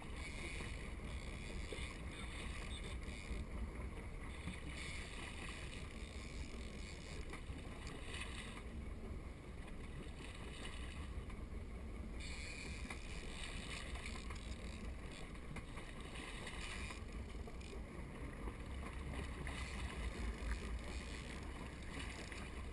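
Wind rumbling steadily on the microphone, with water washing and splashing against a small boat's hull, swelling and fading at intervals.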